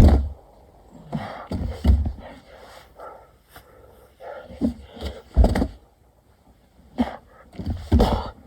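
A person doing burpees: hard, heavy breathing and panting in bursts, with dull thuds as hands and feet hit the ground, each rep taking a few seconds.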